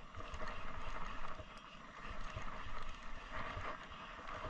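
Wind buffeting the microphone with irregular low thuds, over a steady hiss of choppy water around a small boat.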